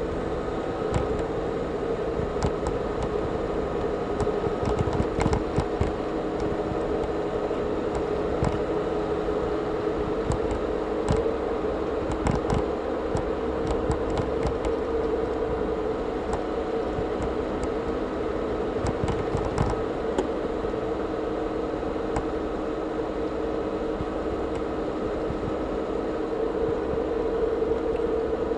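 A car driving along a road, heard from inside the cabin: steady engine and tyre hum with light knocks and rattles now and then, most of them in the first half.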